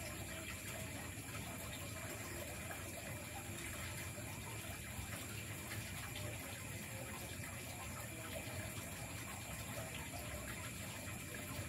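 Steady night-time forest ambience: insects calling in continuous high tones over an even hiss, with a few faint clicks of a spoon on a plate.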